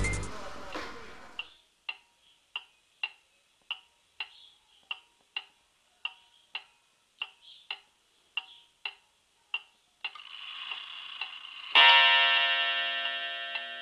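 Wall clock ticking about twice a second. Near the end a short whir rises and the clock strikes once, its tone ringing on slowly as the ticking continues.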